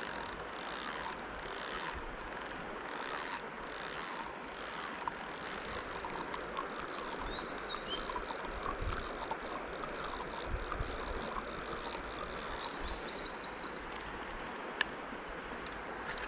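Mountain stream rushing steadily, with small quick clicks from a fishing reel being wound and a few short bird chirps.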